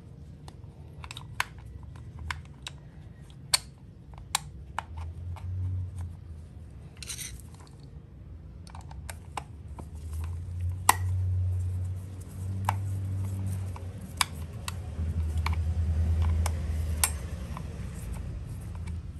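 Scattered light clicks and taps of metal hardware being handled by gloved hands at a motorcycle's lower engine, bolts and fittings knocking together. Under them, a low hum swells and fades several times.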